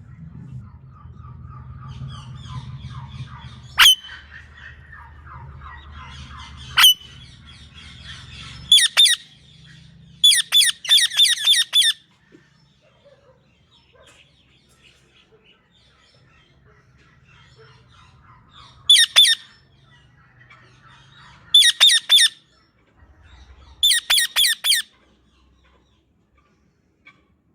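Green parrot squawking: two single sharp screeches, then several runs of rapid, harsh screeches in quick succession, with softer chattering before them. A low hum sits under the first third.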